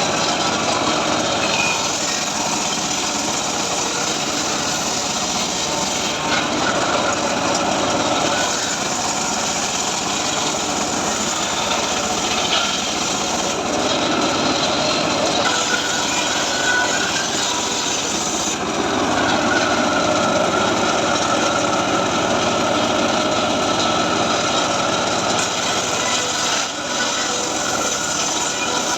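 Homemade circular saw cutting teak timber: a steady blade whine with the noise of the cut, its tone shifting several times as the wood is fed through.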